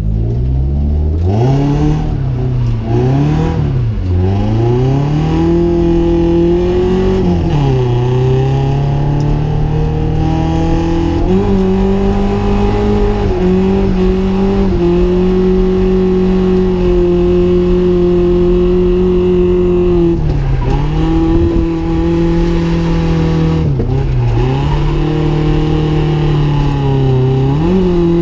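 Nissan 240SX drift car's engine revving hard through a drift run. The revs climb and fall several times, with brief dips between long stretches held high and steady.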